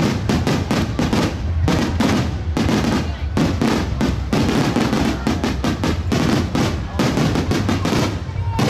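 A fireworks barrage: many aerial shells bursting in quick succession, a dense run of booms and crackles with hardly a gap between them.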